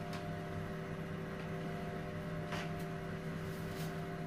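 Steady electrical hum from equipment in a procedure room, made of several fixed tones, with a few faint clicks.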